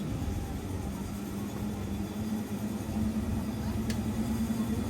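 Steady mechanical hum over a low rumble, with a single sharp click about four seconds in.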